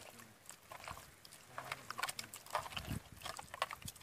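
Wet squelching and sloshing, in short irregular bursts, as a hand squeezes and rubs soaked food in water in a steel pot.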